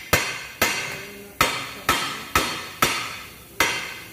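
A hammer striking the steel front suspension of a Mazda CX-5 at the steering knuckle to knock the lower arm's ball joint loose. There are seven sharp metallic blows, about two a second, and each rings briefly.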